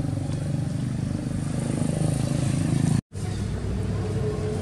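Steady low rumble of motor traffic, broken by a split-second dropout about three seconds in.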